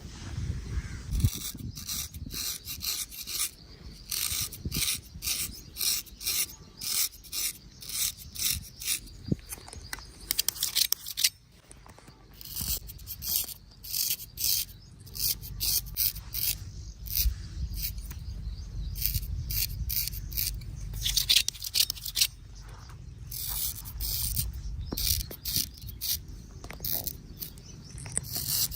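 Razor scraping across stubble in a run of short, rasping strokes, about one or two a second, with a brief pause about twelve seconds in.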